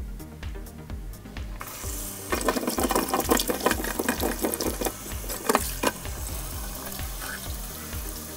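Water running from a tap and splashing, starting about a second and a half in, with many small knocks and clicks through it. It eases off near the end. Background music with a steady low beat plays throughout.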